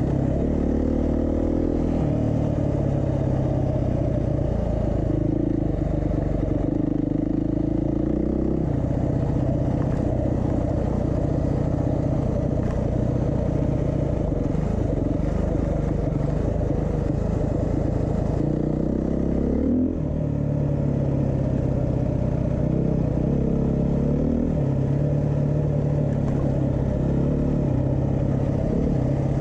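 2022 Beta 390 RR-S enduro motorcycle's single-cylinder four-stroke engine running under way, its pitch stepping up and down several times with throttle and gear changes, with a brief drop in level about twenty seconds in.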